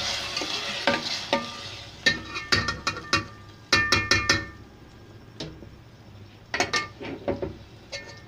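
A spoon stirring boiled chickpeas into frying onions and spices in a steel pot. A sizzle dies away over the first two seconds, then comes a quick run of sharp, ringing clinks of the spoon against the pot, and a few more knocks near the end.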